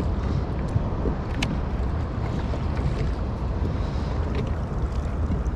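Wind buffeting the microphone over open water, with water lapping against a kayak's hull. There are a few faint clicks.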